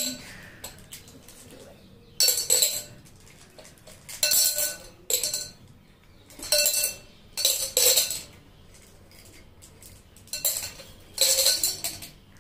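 Small pebbles and glass stones dropped into a glass jar, clinking and rattling against the glass and each other. It comes in about seven short bursts with pauses between.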